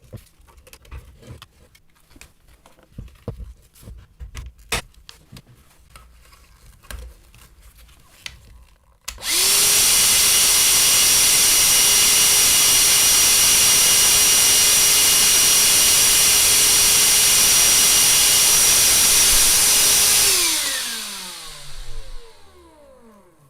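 Small clicks and handling noises, then the bare RS550 20 V DC motor of the disassembled Parkside PHSSA 20-Li A1 vacuum cleaner starts abruptly about nine seconds in. It runs at full speed with a steady high whine for about eleven seconds with no load, drawing about 6 amps, then is switched off and spins down with a falling pitch.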